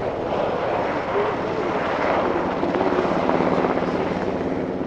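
US Coast Guard HH-60 Jayhawk helicopter flying past low, its main rotor beating in rapid pulses over the steady whine of its twin turboshaft engines. It grows louder about three seconds in.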